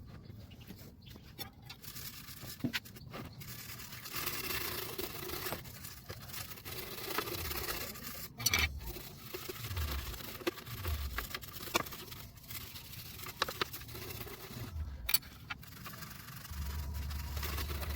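Scrubbing and scraping on a mixer grinder during cleaning, in uneven stretches with occasional clicks and knocks. A low steady hum begins near the end.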